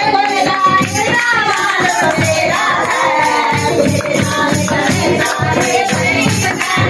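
Hindi devotional bhajan: a sung melody over a steady beat of tambourine-like jingles and hand claps.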